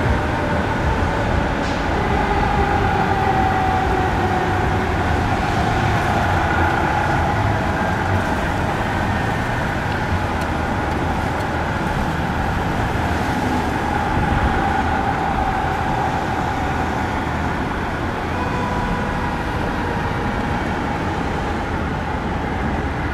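Fire engine and ladder truck responding with their warning sirens and horns sounding steadily, over the rumble of their diesel engines and street traffic.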